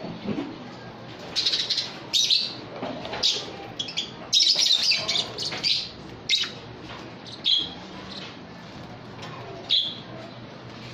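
Lovebirds calling: short, shrill chirps and screeches in scattered bursts, with a dense run of overlapping calls around the middle.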